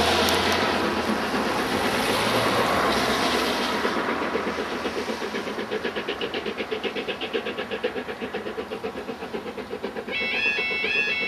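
Rumble of a departing train fading away, then a fast even pulsing. About ten seconds in, a level-crossing warning alarm starts its two-tone warble, sounding for a following freight train.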